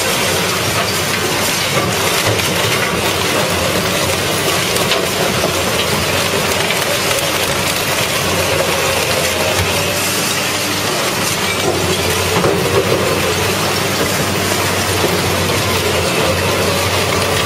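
Red Giant VB 950 DK shredder running under load as it crushes and tears a car body: a loud, steady grinding and crunching of metal over the low hum of machinery.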